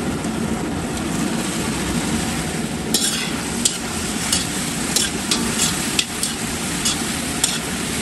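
Baby corn frying in bubbling sauce in an iron kadai, sizzling steadily, with a metal spoon stirring it through; from about three seconds in the spoon scrapes and clicks against the pan every half second or so.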